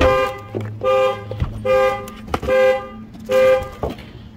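2013 Ford Explorer's anti-theft alarm sounding the horn in a steady run of short honks, five in all, about one every 0.8 seconds. The horn stops shortly before the end. The alarm was set off by a door opened without the key. A few light knocks fall between the honks.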